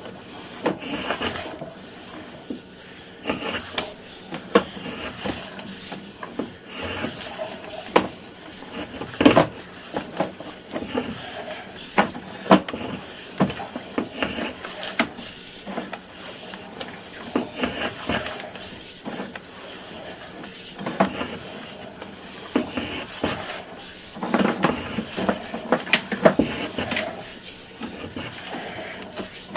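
Irregular clunks, knocks and rattles of a sewer inspection camera's push cable being fed by hand down a drain line, with bunches of louder knocks about 9, 12 and 25 seconds in.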